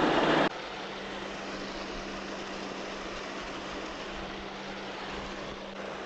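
Steady rushing noise with a low steady hum under it; a louder rush over the first half second cuts off abruptly.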